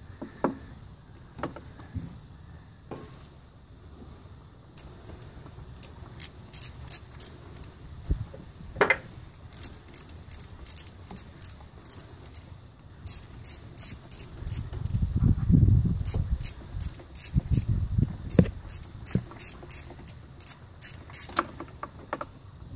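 Socket ratchet clicking in long runs of quick, even clicks as a 10 mm bolt holding a Honda VTEC solenoid is backed out, with a few knocks and some rubbing of the tool in hand.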